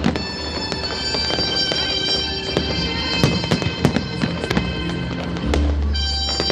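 Fireworks going off in irregular sharp bangs and crackles over music with long held tones.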